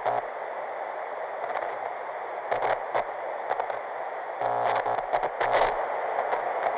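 Static hiss of a lost TV or radio signal, crackling throughout, with short buzzy bursts of interference about two and a half seconds in and again between about four and a half and five and a half seconds in.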